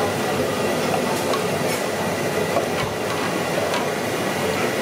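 Steady roar of a gas burner flame under a large steel pot, with a few faint knocks as giant triton's trumpet shells are shifted in the water.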